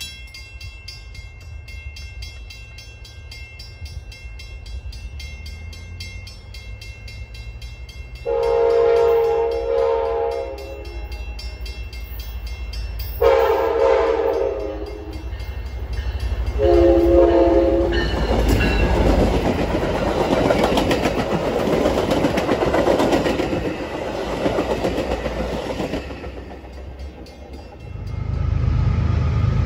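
Locomotive horn sounding three blasts, the third shorter, as a train approaches. The train then passes close by with a loud rumble and clatter of wheels on rail that fades out.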